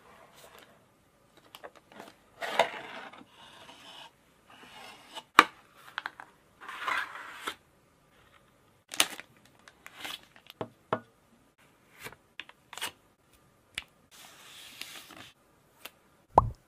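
Cardboard phone packaging handled with cloth gloves: the box tray sliding, card rubbing and scraping in bursts, with sharp clicks and taps as parts are lifted out. A short pitched plop comes just before the end.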